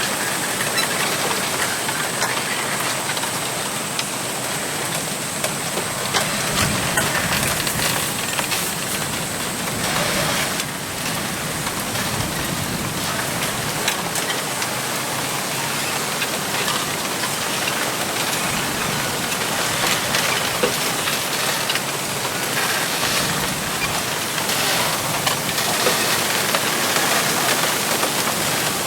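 Wind rushing steadily through a bamboo grove, the leaves rustling, with scattered small clicks and taps from the stalks.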